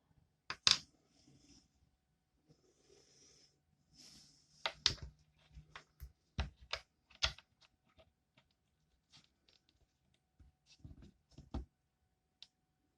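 Scattered small clicks and taps from hands handling small hard objects on a work surface, with a few brief rustles in the first half.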